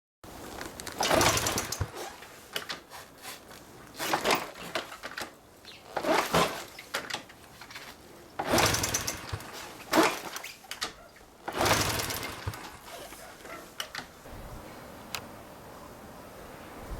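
Honda Super Cub 50 single-cylinder engine making a series of loud, short bursts of sound about every two seconds, with a quieter steady sound in between.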